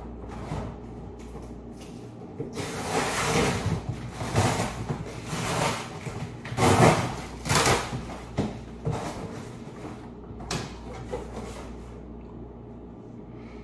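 Rustling, knocking and clattering of kitchen things being unpacked and put away in lower cabinets. The noise comes in irregular bursts, busiest in the middle, then settles to a few soft knocks.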